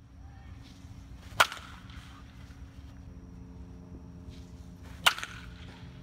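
Baseball bat hitting a baseball twice, about three and a half seconds apart, each a sharp crack with a short ring after it.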